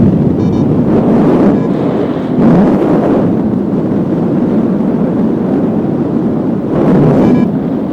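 Strong wind buffeting the microphone, a loud rushing that swells in gusts, strongest about two and a half seconds in and again near the end. Faint short beeps come through now and then underneath.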